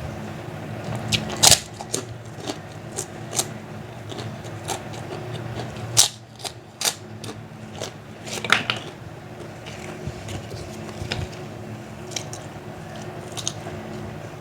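Close-up eating of crunchy fried food, kerupuk crackers and fried nuggets: irregular sharp crunches of biting and chewing, the loudest about a second and a half in, at six seconds and at eight and a half seconds, over a steady low hum.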